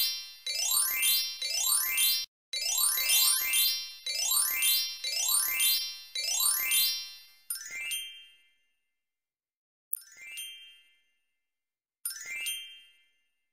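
Sparkling, rising chime sound effects from an interactive e-book, playing as letters are written onto the tracing line. Each one sweeps upward and lasts under a second. They run back to back for about the first seven seconds, then three more come about two seconds apart.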